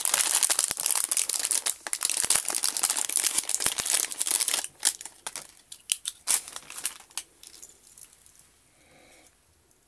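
Clear plastic packaging sleeve crinkling as it is handled and pulled open: dense crinkling for about the first four and a half seconds, then a few scattered crinkles and clicks that die away by about eight seconds.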